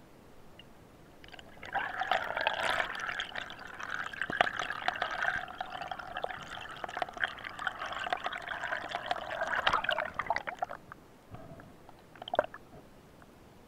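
Water gurgling and bubbling, with scattered clicks, starting about a second in and lasting some nine seconds. A short splash-like burst follows near the end.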